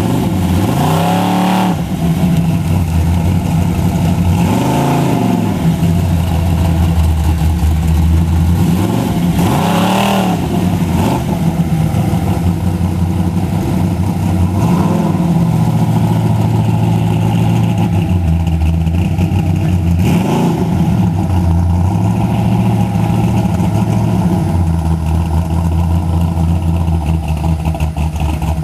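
Chevy drag van's engine idling, revved about five times, each rev rising and falling back, roughly every five seconds.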